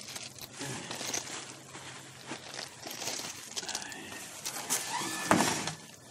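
Rustling and crinkling of paper with scattered clicking handling noises, and one sharp knock about five seconds in.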